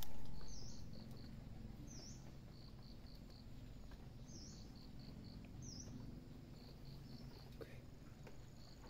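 The fading echo of a suppressed air rifle shot dies away in the first second. Then a small creature's high call repeats steadily: a short chirp followed by three or four quick high notes, about once every second and a half, over faint outdoor background noise.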